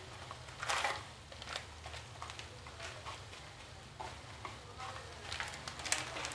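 Masala and chopped tomatoes faintly sizzling as they fry in a nonstick kadhai, with a few short scrapes and clicks of a steel spoon against the pan.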